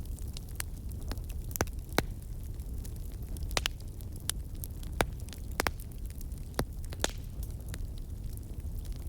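Campfire burning: a low steady rumble of flames with irregular sharp crackles and pops from the burning wood.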